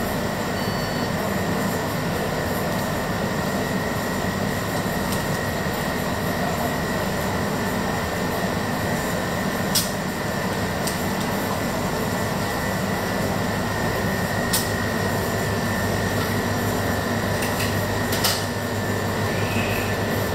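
Steady machine hum and hiss with a thin, constant high whine, the running of a shop's refrigeration or ventilation, with a few faint clicks.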